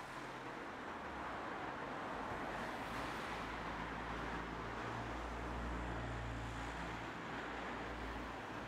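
Street traffic: cars driving past, a steady hiss of tyres and engines with a low rumble that swells in the middle and fades near the end.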